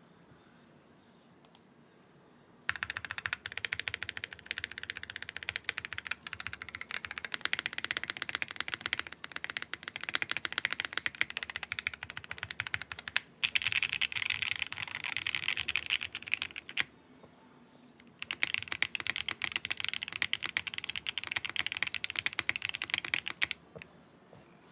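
Typing on a QK60 keyboard with Akko V3 Creamy Purple Pro tactile switches on an aluminium plate with no foam: a dense, fast run of clacky keystrokes. The typing starts a few seconds in, pauses twice briefly, and stops near the end.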